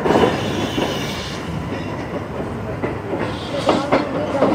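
Passenger train's wheels rolling slowly over the points and rail joints of a junction yard: an irregular clickety-clack of knocks over a steady rumble, with a brief squeal near the end.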